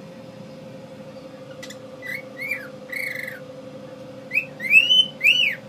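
Pet cockatiel whistling: a few short arched whistled notes about two seconds in, then a louder run of rising-and-falling whistles in the second half, over a steady low hum.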